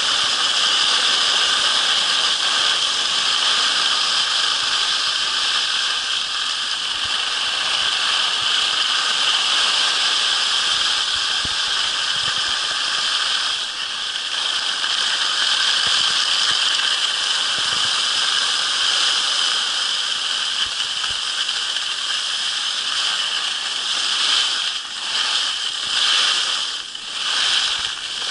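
Skis sliding over groomed snow, a steady hiss that dips and breaks up a few times near the end.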